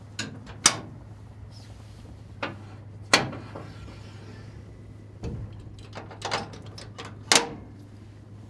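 A series of sharp metal clacks and knocks, about eight, three of them loud, from excavator service compartment doors and latches being opened and shut, over a low steady hum.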